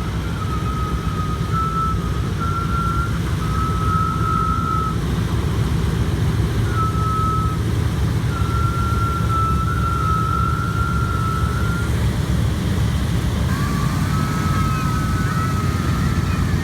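The four radial engines of a Boeing B-17 Flying Fortress running, a steady low drone heard inside the aircraft, with a thin high tone coming and going over it.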